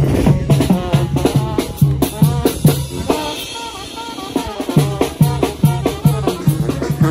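Upbeat Latin music with a steady low thumping beat, about three beats a second, under a bending melody. The bass beat drops out for about a second and a half in the middle, then comes back.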